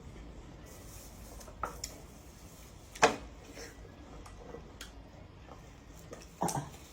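Scattered sharp clicks and knocks of dishes being handled while eating, with one loud knock about three seconds in and another short pair near the end.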